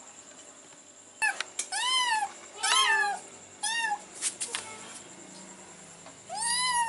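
A cat meowing four times, each meow rising then falling in pitch; the last comes near the end.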